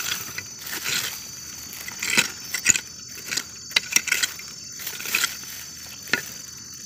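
Irregular scrapes and sharp little clicks of a hand tool raking through damp soil, pebbles and dry leaves, clearing the ground in search of buried earthstar mushrooms.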